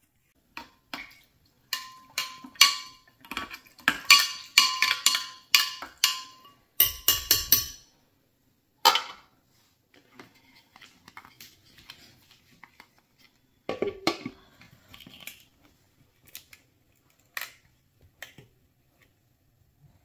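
A quick run of clinks and taps of a spoon against a glass blender jar, the glass ringing briefly under them, with a couple of heavier knocks as kitchen things are set down on the countertop. Then a few scattered light taps and clatters.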